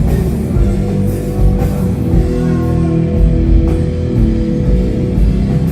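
Doom metal band playing live: heavy guitars and bass over a drum kit, with a note held through the middle and a few cymbal crashes.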